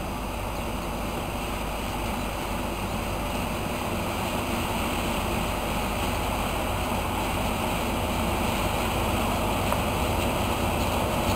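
DB class 294 diesel shunting locomotive running as it draws a train of loaded flat wagons closer, a steady engine and rolling rumble that grows gradually louder.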